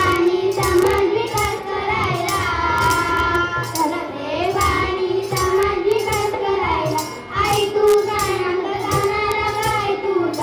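A group of schoolchildren singing a song together into microphones, with a small hand drum beating along in short repeated strikes.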